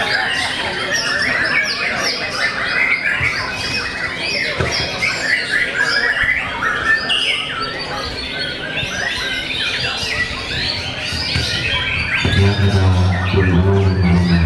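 Several caged white-rumped shamas singing at once, a dense run of overlapping rapid whistles, trills and chirps. A low steady hum comes in near the end.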